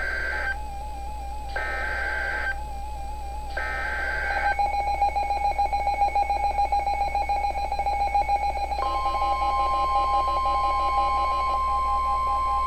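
Emergency Alert System tones: three one-second bursts of screechy SAME header data about a second apart, then a pulsing alert tone. About nine seconds in, a steady higher alert tone joins it, the attention signal that comes before a severe thunderstorm warning.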